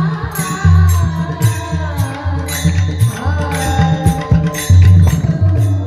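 Instrumental passage of Marathi devotional kirtan music: a harmonium holding chords and a melody line over rhythmic pakhavaj drum strokes and regular clashes of small hand cymbals.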